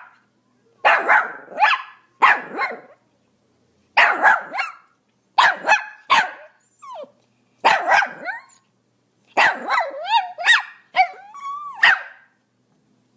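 Small dog, a Pomeranian, barking in quick bursts of two to four high, sharp yaps with short pauses between. Near the end the barks turn into a run of yelps that slide up and down in pitch.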